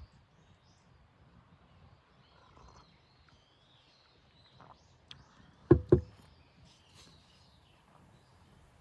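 Two short, loud knocks in quick succession, a little before six seconds in, over faint bird chirping in a quiet outdoor background.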